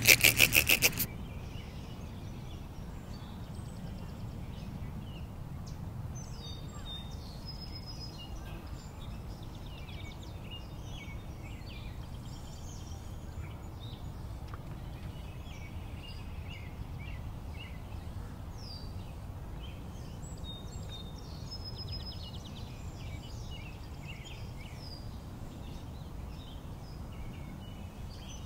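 Small birds chirping and calling over a steady low outdoor rumble. In the first second a loud rapid rattling burst cuts off suddenly.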